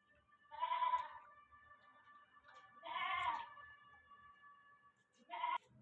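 An animal bleating three times in short calls, a second or two apart, the last one briefest.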